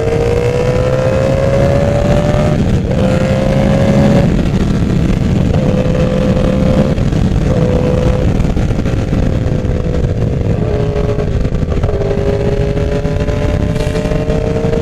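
Yamaha R1's inline-four engine pulling under way. Its note climbs and drops back twice in the first four seconds as it shifts up, then holds fairly steady with small dips and rises, over a heavy low rush of wind.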